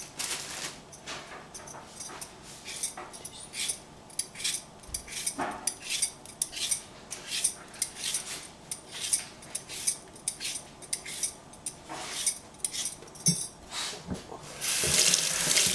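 Vegetable peeler scraping the skin off a cucumber in quick, irregular strokes over a stainless steel sink. Near the end a tap is turned on and water runs.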